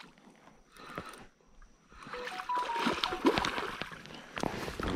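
A hooked channel catfish splashing at the surface as it is reeled in to the bank, starting about two seconds in.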